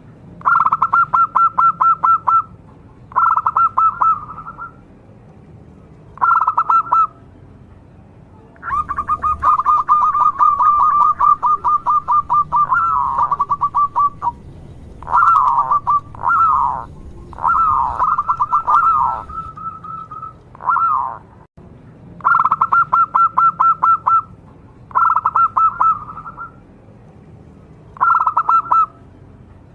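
Zebra dove (local perkutut) cooing: phrases of rapid staccato notes repeated every few seconds, with a longer run and some falling coos through the middle.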